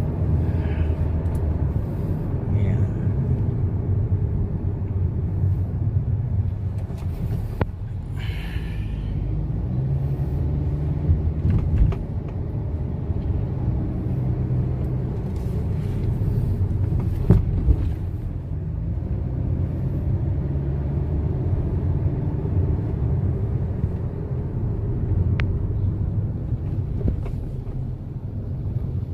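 Car engine and road noise during a test drive, a steady low rumble with no jerking, the misfire having been fixed with new ignition coils and spark plugs. A couple of short thumps about twelve and seventeen seconds in.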